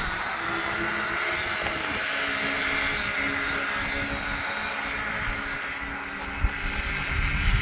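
Radio-controlled off-road buggy running round a dirt track, its small motor giving a steady pitched drone that drops slightly in pitch about two seconds in.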